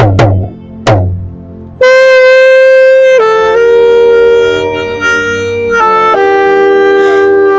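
Dramatic background music: a few pitched percussion hits, then long held horn-like notes that step to new pitches several times.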